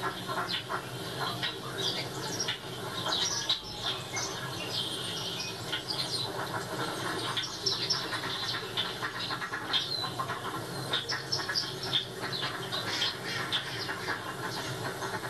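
Small garden birds chirping and twittering at a feeder, played through a TV's speakers: many quick overlapping calls, over a steady low hum.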